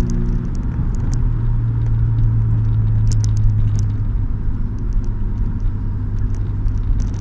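Car engine and road noise heard from inside the cabin at a steady cruise: a low, even engine drone over tyre rumble, with a few light ticks and rattles.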